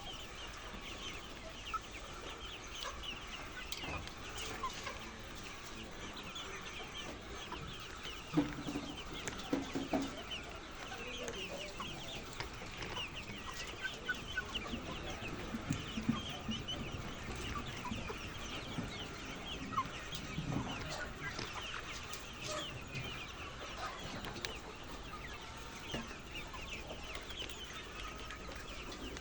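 A large flock of laying hens clucking continuously in an egg-farm house, a dense overlapping chatter of short calls. A few louder, lower sounds stand out about eight to ten seconds in.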